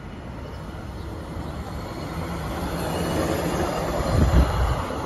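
A hi-rail pickup truck running on the railway tracks on its steel guide wheels approaches and passes close by; the rolling rumble grows steadily louder and is loudest as it goes by about four seconds in.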